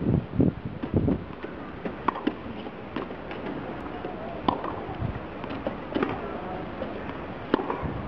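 Tennis stadium ambience: a low hum of spectator chatter with scattered sharp clicks and taps, and a few louder thumps in the first second.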